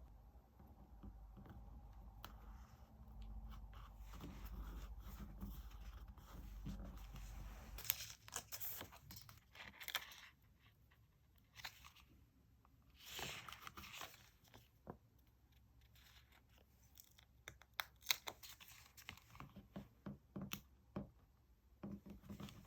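Stickers and paper being peeled and handled for diary decorating: scattered rustles, soft taps and clicks, with two longer ripping sounds about a third of the way in and again just past halfway.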